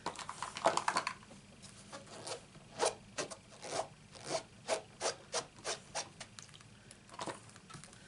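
A rubber stamp on a clear acrylic block being rubbed on the table in short, even strokes, about three a second, with a few light clicks of handling before it starts.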